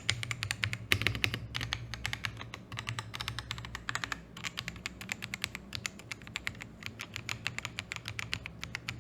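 Steady, fast typing on a Zuoya GMK87 mechanical keyboard fitted with factory-lubed Gateron Milky Yellow Pro linear switches and PBT doubleshot keycaps: a continuous run of quick key clicks.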